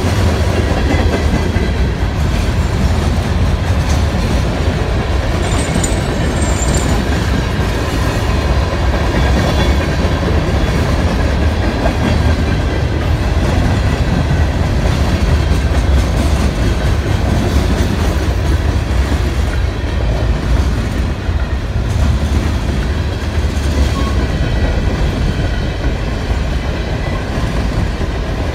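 Freight train rolling past at close range: a steady rumble of steel wheels on the rails as boxcars and Norfolk Southern open-top hopper cars go by.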